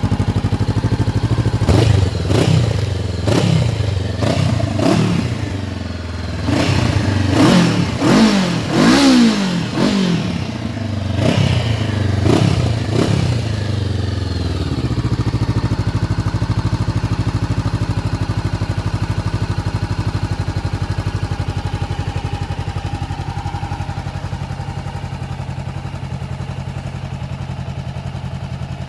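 Honda CB500X's 471 cc parallel-twin engine running through a Blackwidow 300 mm oval carbon-fibre silencer with its baffle fitted. It idles briefly, is revved in about a dozen quick throttle blips, each rising and falling, then settles back to a steady idle about halfway through.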